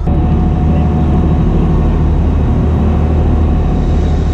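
A fishing party boat's engines running with a steady low drone, under a constant rush of wind and water noise.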